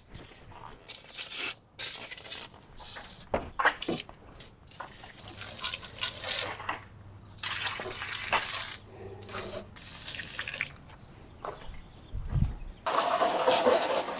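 Aerosol can of engine degreaser sprayed over a car engine in repeated short bursts. Near the end a garden hose starts spraying water onto the engine, a louder, steady rush of water.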